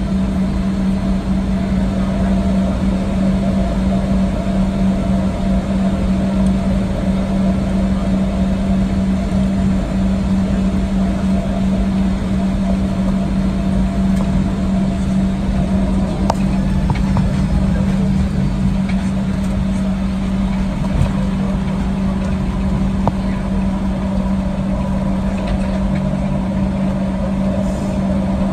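Steady cabin noise of a Boeing 737-800 taxiing with its CFM56 engines at idle, heard from inside the cabin. A constant low hum sits over an even rush of noise.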